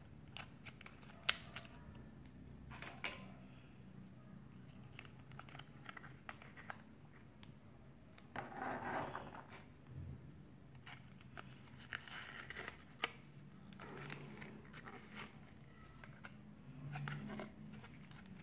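Hands handling toy packaging: sharp clicks and taps of small plastic toy cases and a plastic blister tray, with short bursts of crinkling plastic and rustling cardboard, the longest about halfway through.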